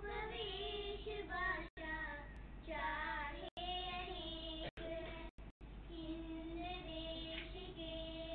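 Young girls singing a slow melody with long held notes. The audio cuts out completely for a split second about five times.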